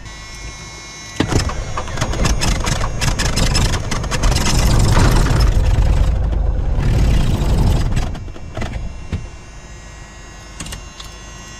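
Cessna 182's six-cylinder piston engine being cranked while hot, sputtering unevenly with rapid irregular firing rather than settling into a steady run, then dropping away about eight seconds in. This is a hard hot start: the engine was started hot without the hot-start procedure.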